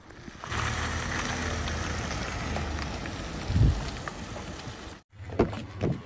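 Ford F-150 pickup driving slowly past, its engine running steadily with tyre hiss on wet pavement and a brief low surge partway through. After a sudden cut, a few short clicks and knocks.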